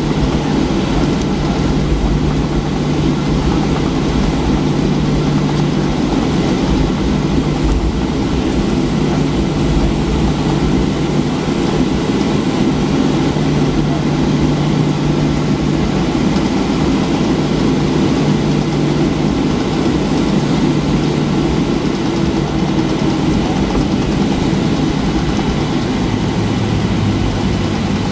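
Boeing 737-800's CFM56-7B jet engines running at idle as the airliner taxis after landing, heard from inside the cabin: steady engine noise with a low hum. A lower hum joins in near the end.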